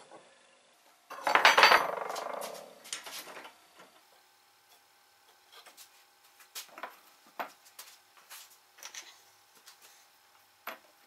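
Iron rods clattering and clanging against a workbench about a second in, with a short metallic ringing, followed by scattered light metal taps and clicks as the rods are handled.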